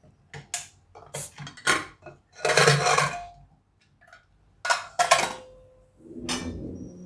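Inner-lid pressure cooker being unlocked and its lid lifted out: a string of metal clicks and knocks from the lid and handles, a brief rushing noise about two and a half seconds in, then more clatter near the end.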